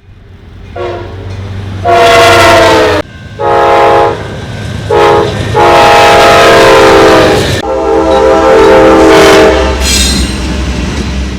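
Locomotive multi-chime air horn sounding the grade-crossing warning: two long blasts, a short one, then a long one. The last blast drops in pitch about seven and a half seconds in as the locomotive passes, over the low, steady rumble of the passing train.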